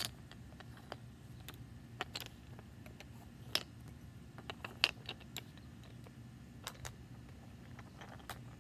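Scattered light clicks and taps as the hone rods of a Lansky knife-sharpening kit are fitted into the holes of its wooden storage block. The sharpest clicks fall a little after three and a half seconds and near five seconds.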